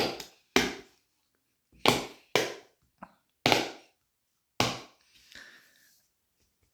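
Fat Brain Toys Dimpl Pops fidget toy: silicone bubbles pressed and popped one at a time, about seven sharp pops at uneven intervals, then fainter handling noise near the end.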